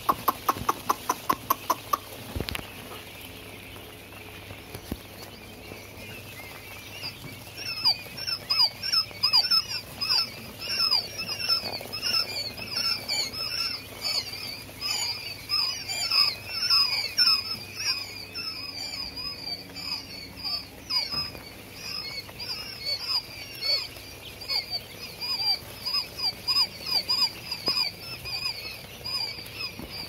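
A brooder full of quail chicks peeping: a dense chorus of short, high calls, many falling in pitch, growing thicker after the first several seconds. A rapid ticking, about four a second, runs through the first two seconds.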